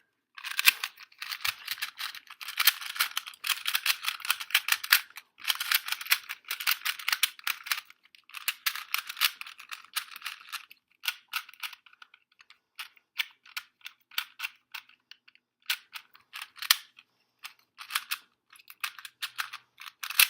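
Plastic 2x2 speed cube being turned fast in the hands, its layers clicking in rapid runs. Long stretches of continuous turning come first, then shorter bursts and single turns near the end.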